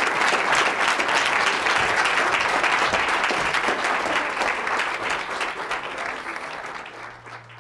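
Audience applauding, a dense crowd of clapping hands that fades out near the end.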